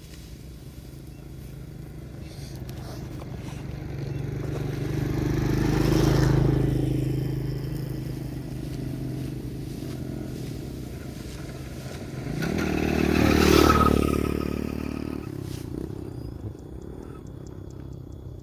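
Two motor vehicles pass one after the other, each engine growing louder, peaking and fading away. The first is loudest about six seconds in, the second, slightly louder one about thirteen to fourteen seconds in, with engine hum in between.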